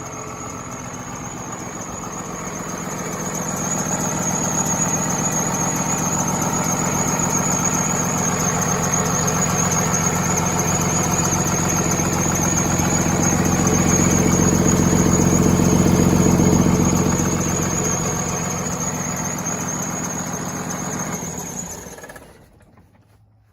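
An engine running steadily with a continuous high-pitched whine over its drone. It grows louder over the first few seconds, eases off later, and cuts off abruptly near the end.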